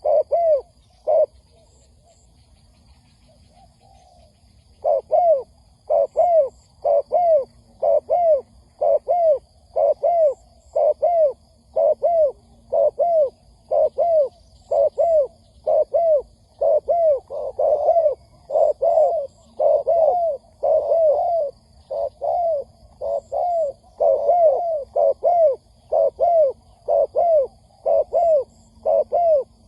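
Spotted dove cooing in a long series of short, quickly repeated arched notes; the calling stops about a second in and resumes some four seconds later.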